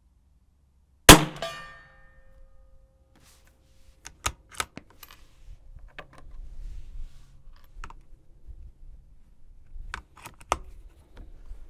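A CZ 457 Varmint MTR .22 LR rifle fires one shot of CCI Standard Velocity about a second in, a sharp crack with a short ring after it. A few seconds later the bolt is worked with metallic clicks, and near the end a fresh round is fed and the bolt closed with more clicks.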